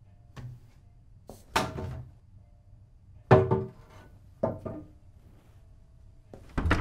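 A handful of dull wooden thunks and knocks, a second or two apart, the loudest about three seconds in, as wooden things are handled and bumped.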